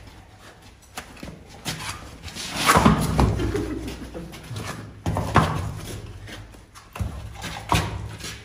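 A run of knocks and thuds as a horse's hooves shift on a concrete stable floor while a held hoof is set down and lifted again. The loudest is a cluster of thumps about three seconds in.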